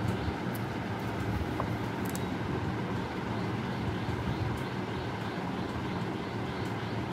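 Steady low rumbling background noise, with a few faint light clicks from the cardboard box being handled.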